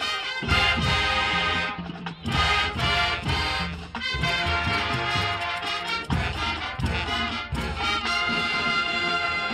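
Marching band playing a loud brass-led arrangement over drum line hits, with a brief break in the music about two seconds in.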